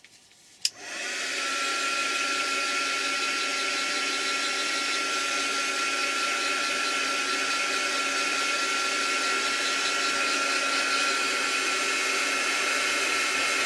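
Hand-held electric hot-air blower switched on with a click under a second in, then running steadily with a constant whine over its rushing air, drying a wet coat of matte medium.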